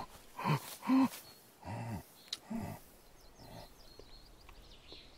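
Four short, low vocal grunts with arching pitch in the first two and a half seconds, then faint bird chirps.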